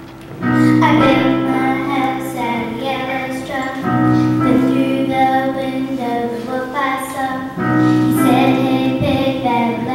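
Children's voices singing a song with instrumental accompaniment, starting about half a second in after a brief lull.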